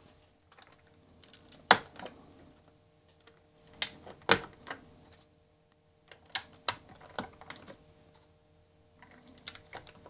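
Plastic keycaps being pressed onto an Amiga 1200 keyboard: a series of sharp clicks and snaps at uneven intervals.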